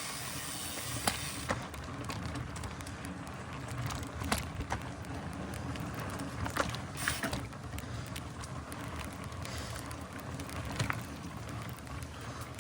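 Mountain bike rolling along a dirt trail: steady rumbling tyre and riding noise with scattered sharp clicks and knocks from the bike.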